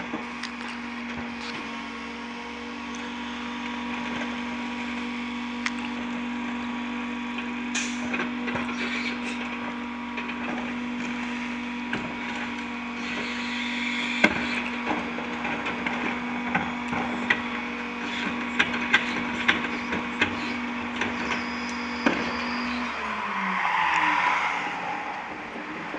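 A Heil 5000 rear-loader garbage truck working at the curb: a steady running hum from the truck while carts are banged against the hopper, with sharp knocks and cracks as the trash is loaded and packed, many of them in quick succession in the second half. The hum drops off about three-quarters of the way through.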